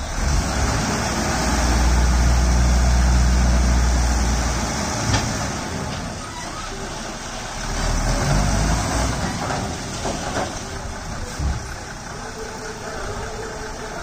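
Diesel engine of an Ashok Leyland tipper lorry running with its bed raised to dump soil. It revs up strongly for the first few seconds, drops back, and rises again briefly about eight seconds in.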